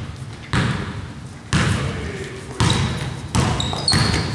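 Basketball being dribbled on a gym floor, a sharp echoing bounce about once a second, with a couple of short high sneaker squeaks near the end.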